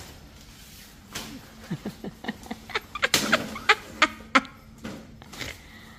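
Nylon fabric and frame of a pop-up privacy tent rustling and snapping as it is stood up and set, with a run of sharp clicks and snaps, loudest in the middle.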